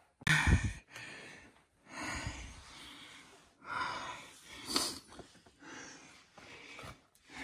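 A person breathing hard in heavy, noisy breaths, several swells a few seconds apart, with a loud bump near the start.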